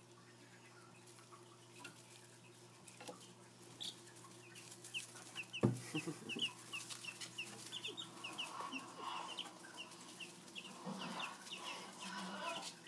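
Week-old chicks peeping: short, high, falling chirps, several a second, starting about four seconds in and going on to the end. A single thump comes just before the peeping is fully under way, and a faint steady low hum lies underneath.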